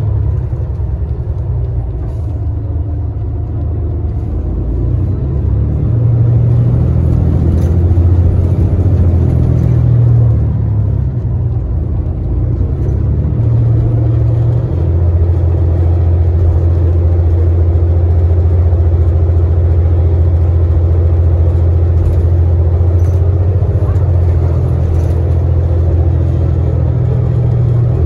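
Interior of a New Flyer Xcelsior XDE60 diesel-electric hybrid articulated bus under way: a steady low drone of the drivetrain mixed with road noise. The drone's pitch shifts a few times in the first half, then holds steady from about halfway.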